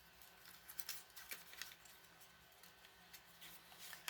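Faint, scattered light clicks and rustles of a smoke alarm battery being handled and turned over in the hands.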